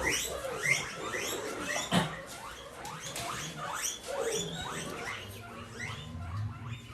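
A brood of fluffy baby poultry chicks peeping: many short high calls, each sliding downward, several a second and overlapping. A light knock about two seconds in.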